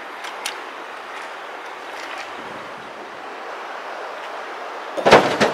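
A rock thrown into the steel tipper bed of a Zil-164 dump truck, landing with a loud clattering crash of two strikes in quick succession near the end. Before it, a steady rushing background with a few light clicks of stones.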